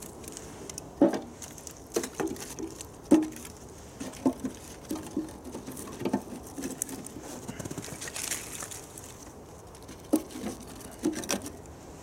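Irregular knocks and clunks of firewood being handled and loaded into a metal wood-burning field stove, with a few sharper knocks and a short rustling hiss partway through, as the stove is made ready for lighting.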